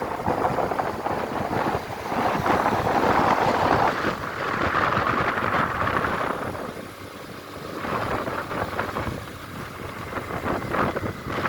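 Wind rushing and buffeting over a phone microphone on a moving motorcycle, with traffic noise underneath. The rush eases about two-thirds of the way through, then picks up again.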